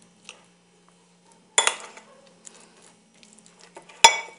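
A spoon knocking and scraping against a bowl of thick ham pâté. There are light taps throughout, with two sharp clinks, one about one and a half seconds in and a louder one near the end that rings briefly.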